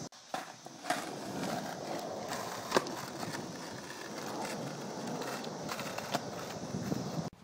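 Skateboard wheels rolling over concrete, with a few sharp clacks; the loudest comes about three seconds in.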